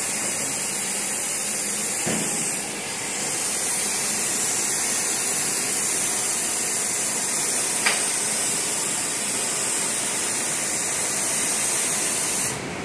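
Plasma cutting torch on a CNC table cutting steel plate: a loud, steady hiss that cuts off suddenly near the end.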